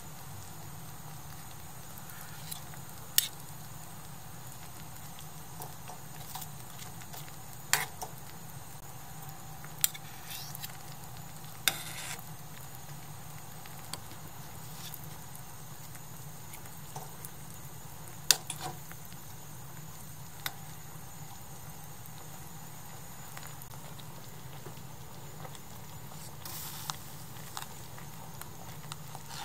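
Pot of vegetables simmering on a tabletop gas burner, a steady bubbling. Now and then metal spoons clink sharply against the small aluminium pot as spoonfuls of tsumire paste are dropped in.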